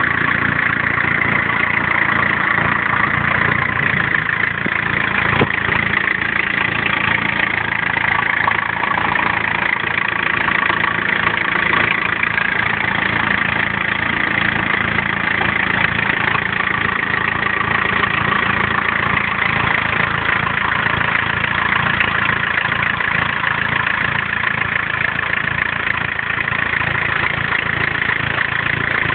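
A tds diesel engine idling steadily, with an even, unchanging running sound.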